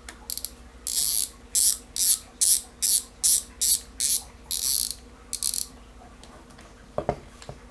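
A Browning AG40 spinning reel, freshly reassembled, ratchets in about ten short, loud bursts at roughly two a second as it is worked by hand. A low knock follows near the end.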